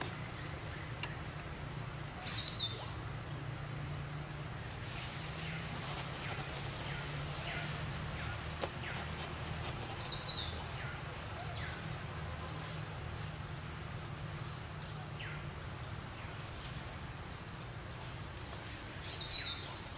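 Short high-pitched chirps and squeaks from small animals, loudest in brief clusters about two seconds in, ten seconds in and near the end, over a steady low outdoor hum.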